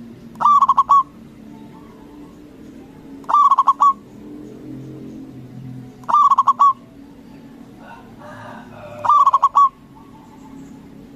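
Zebra dove (perkutut) cooing: four short phrases of quick notes, each about half a second long, about every three seconds.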